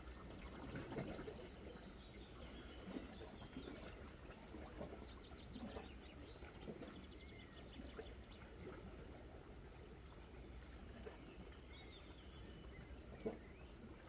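Faint small waves lapping and trickling among shoreline rocks, with a few faint bird chirps. A single sharp tap comes near the end.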